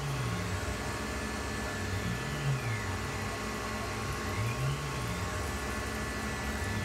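Tormach 1100 CNC mill cutting a bolt knob in a roughing pass: the spindle runs steadily under flood coolant spray while the end mill circles the part. The axis drives whine, rising and falling in pitch about every two seconds as the tool goes around.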